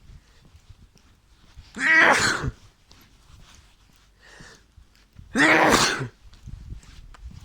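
A person sneezing loudly twice, the sneezes about three and a half seconds apart.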